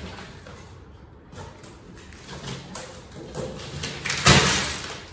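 Rustling and handling noises close to the microphone, with a sharp thud about four seconds in.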